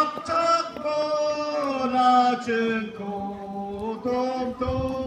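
Voices singing a slow, chant-like melody, each note held for about a second before moving to the next.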